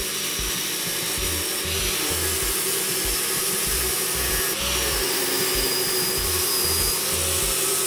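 Angle grinder with a coarse 36-grit sanding disc running steadily and grinding against a homemade sanding drum spinning in a drill press, rough-truing the drum's surface.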